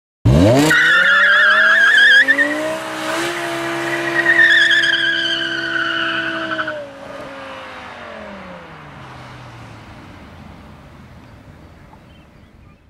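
A car doing a burnout: its engine revs up sharply and is held high while the spinning tyres squeal in two long, wavering screeches. About seven seconds in the revs drop away and the sound fades out.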